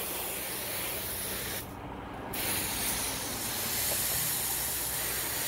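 Water spraying from a hose nozzle onto a concrete floor, wetting it down to keep the dust down. The spray cuts out for a moment about two seconds in, then starts again.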